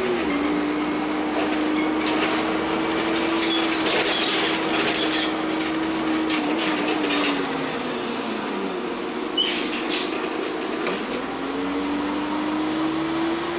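Cabin sound of a 1999 Nova Bus LFS transit bus under way: a steady drivetrain whine falls in pitch as the bus slows about two-thirds of the way in, then rises again as it speeds up. Underneath runs the constant rush of the roof air-conditioning fans on full blast, with clusters of interior rattles.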